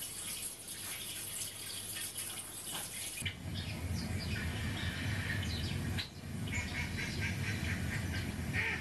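Television playing an aquarium scene's trickling, bubbling water, which changes abruptly about three seconds in to small birds chirping at a garden feeder over a low background rumble.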